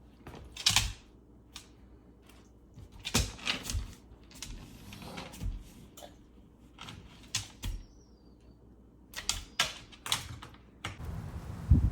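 Irregular sharp clicks and taps, a few at a time with gaps between them. Near the end a steady rushing noise sets in with a thump.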